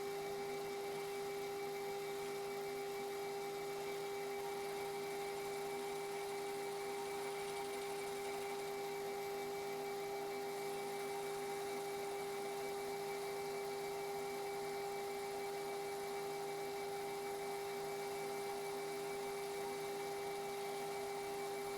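Metal lathe running at a steady speed with a constant whine, switched on just before. It is turning a cast pulley on a faceplate for a light facing and edge-breaking pass.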